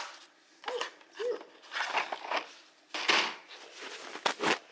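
Cardboard advent calendar box and treats being handled: a few short rustles and sharp clicks, the loudest rustle about three seconds in and a quick run of clicks near the end.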